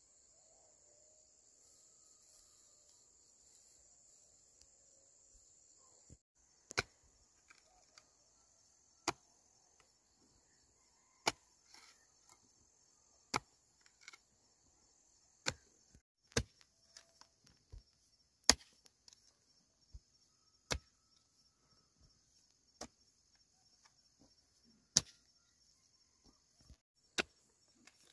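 Sharp single strikes, roughly one every two seconds, starting about six seconds in, with the sound of chopping at wood. Under them, a steady high chorus of insects.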